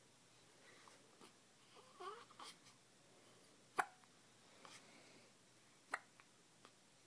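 A two-week-old newborn baby hiccuping: two sharp little hiccups about two seconds apart, the first just before the middle, with a few fainter small sounds around them.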